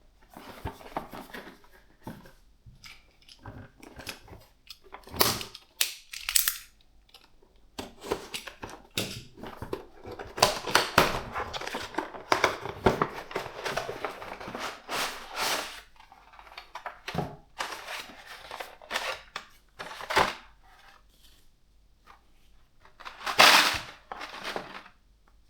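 Packaging being opened and handled by hand: rustling and crinkling, broken up by many sharp clicks and snaps. The loudest snap comes near the end.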